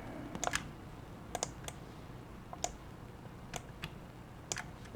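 Light clicking at a computer: about a dozen short clicks in small clusters, often two in quick succession, roughly once a second.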